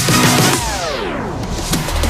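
Background electronic music: the beat gives way, about half a second in, to a long falling pitch sweep.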